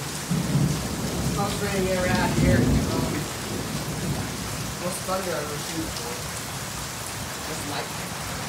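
Thunderstorm: rain falling steadily, with a low rumble of thunder swelling in the first few seconds, loudest about two and a half seconds in.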